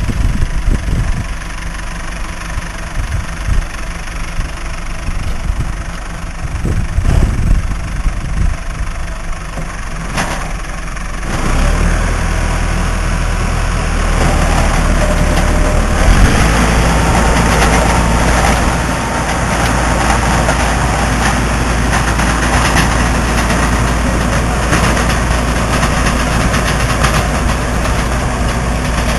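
Tractor engine driving a rotary drill, running unevenly at a lower level at first, then stepping up to a louder, steady run about 12 seconds in and again at about 16 seconds as speed and load rise.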